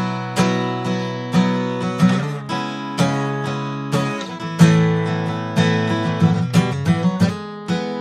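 Acoustic guitar played unaccompanied, chords or picked notes struck about twice a second and left ringing as the chords change.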